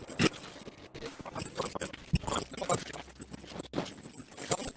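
Small socket ratchet clicking in short, irregular spurts as it turns a bolt on a Honda CBR150R's rear brake master cylinder, with light metal tool handling.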